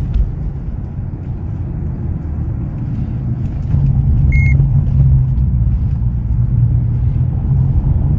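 Steady low rumble of a car's engine and road noise heard from inside the cabin while driving, growing a little louder about four seconds in. A single short high beep sounds about four and a half seconds in.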